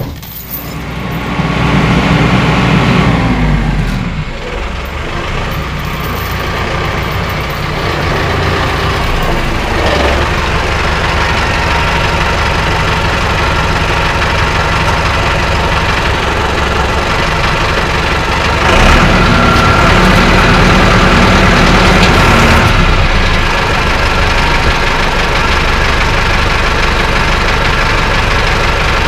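Tractor engine running and pulling on a chain hooked to a dozer blade, trying to jerk a seized blade mount loose. The engine gets louder a second or so in and again about two-thirds of the way through, as it pulls hard.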